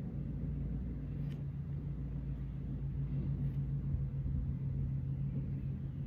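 A steady low mechanical hum over a low rumble, like a motor or machine running continuously, with a couple of faint clicks.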